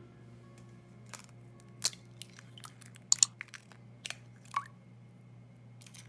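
Eggs being cracked into a glass bowl: a scattered series of sharp shell cracks and crackles, the loudest a quick double crack about three seconds in.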